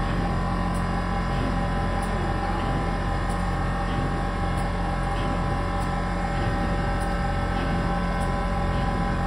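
Commercial ice cream machine running with a steady mechanical hum as soft mango ice cream is pushed out through its nozzle into a tub.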